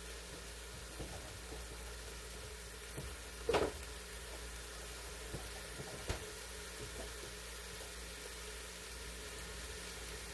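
Chuck roast and onions searing in an Instant Pot's stainless inner pot on the sauté setting: a steady low sizzle, with a few scattered clicks and knocks, the loudest about three and a half seconds in.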